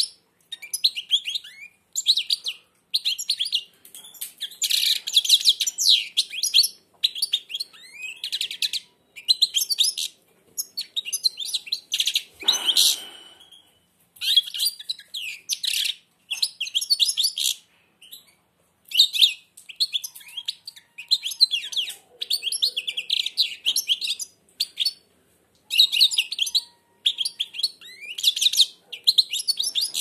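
European goldfinch (chardonneret) singing in a cage: runs of rapid, high twittering phrases, each a second or two long, with short pauses between them.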